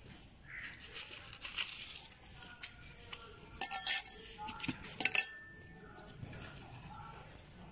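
Hands scratching and raking dry, pebbly soil, with small stones clicking and grating against each other, as the soil is worked over sown coriander seed. The sharpest clicks come about four and five seconds in.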